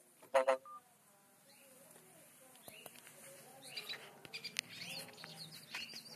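Hooded siskin twittering and chirping in short, quick notes that grow busier in the second half, after a short loud pitched sound just after the start.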